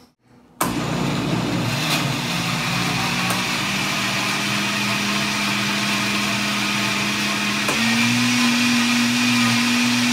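Countertop blender switched on about half a second in and running steadily, blending a protein shake of strawberries, protein powder, egg yolk and milk. Its motor hum edges higher and then steps up in pitch with a click near the end.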